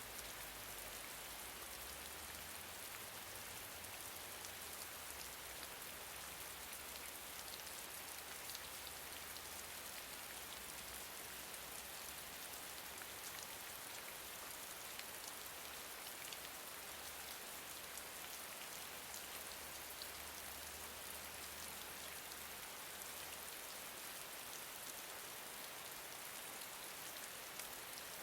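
Gentle rain falling steadily: an even hiss of rainfall with many small drop ticks scattered through it.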